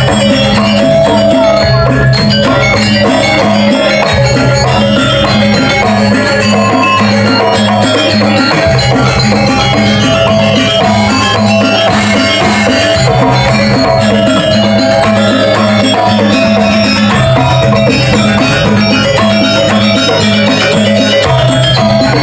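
Balinese janger dance music: tuned metal percussion and drums playing a steady, repeating rhythmic pattern.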